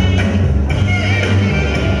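Music with a steady beat and a heavy bass line.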